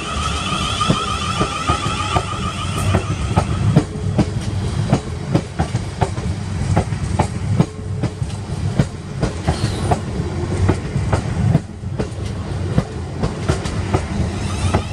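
South Western Railway Class 444 electric multiple unit passing close by, its wheels clattering over rail joints and pointwork with a steady low rumble. A high whine fades out about four seconds in.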